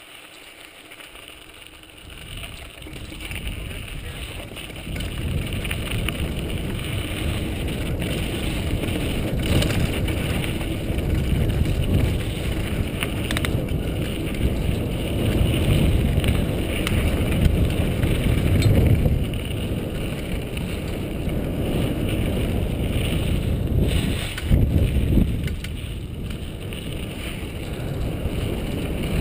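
Wind rumbling on a helmet-mounted GoPro HD camera, mixed with tyre and trail noise from a full-suspension mountain bike, a 2003 Intense Tracer, riding a dirt singletrack. It is quiet at first, and the rumble builds from about two seconds in, with a few sharp knocks and rattles from bumps.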